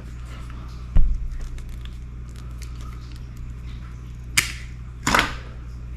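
Wire being stripped with hand tools: a dull thump about a second in, then a sharp snap and a short rasping pull near the end as the jaws bite and the insulation comes off.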